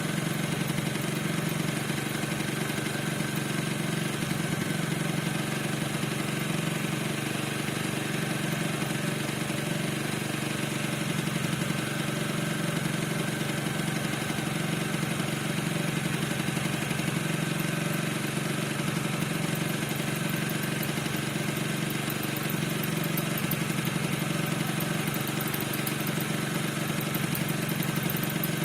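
Piaggio NRG 50 scooter's 50 cc two-stroke engine idling steadily, with a squeak from the engine whose cause is unknown.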